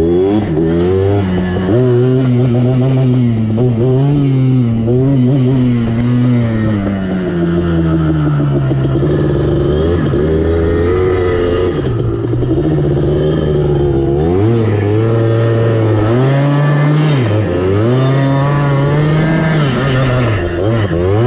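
Motorbike engine revving, its pitch climbing and falling repeatedly over a few seconds at a time, with quicker dips and rises near the end.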